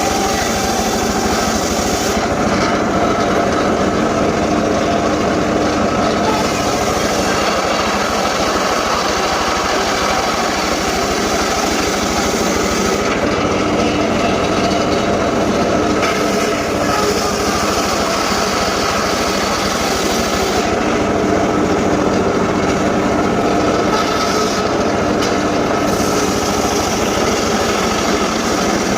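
A small engine-driven saw running steadily at working speed, with its engine note holding an even pitch and no pauses.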